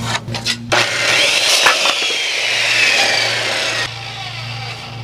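Corded circular saw crosscutting a pine 2x8 board: the motor's whine climbs as it spins up about a second in, sinks slowly under load through the cut, and stops about four seconds in.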